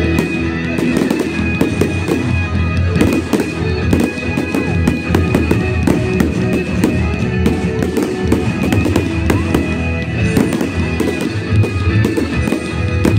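Fireworks display going off: a dense, rapid string of sharp bangs and crackles from aerial shells and comets, with music playing underneath.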